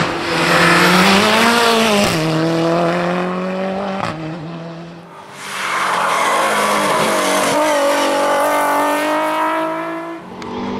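Rally cars driven hard on a tarmac stage, one after the other. The first engine rises in pitch, then drops about two seconds in as the driver lifts and changes gear. After a short lull about five seconds in, a Nissan 350Z's V6 climbs steadily in pitch under acceleration, then cuts off near the end.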